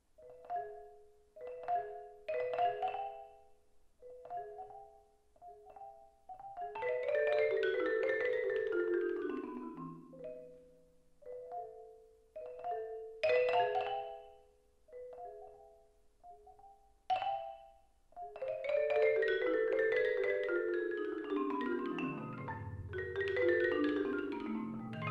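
Solo concert marimba played with mallets: short chords struck separately, broken by fast descending runs that cascade from the upper bars down into the deep bass notes, once about a third of the way in and again, longer, through the last third.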